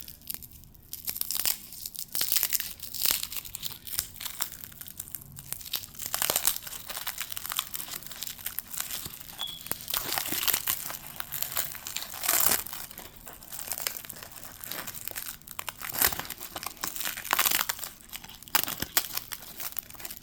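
Foil wrapper of a 1991 Pacific football card pack crinkling and tearing as it is worked open by hand, in irregular crackles and rustles; the pack is stuck and hard to open.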